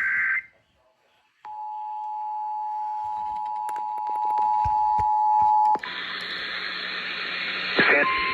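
The tail of an Emergency Alert System digital data burst, then about a second of silence, then the EAS two-tone attention signal, a steady dual-pitched tone lasting about four seconds. It cuts off abruptly into radio hiss. After a click near the end, a single steady alert tone begins over the hiss.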